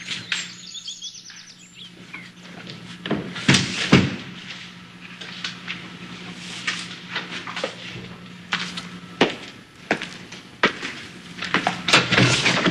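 Footsteps and scattered knocks on a hard floor, irregular, with a louder pair of knocks a few seconds in and a busier run near the end. A few faint high chirps sound about a second in, over a steady low hum.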